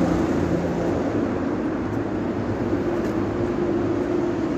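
Steady hum of road traffic from the street and the elevated expressway running alongside, a continuous low rumble.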